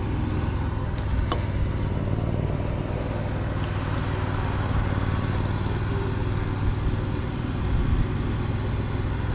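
Steady low hum of a vehicle engine idling.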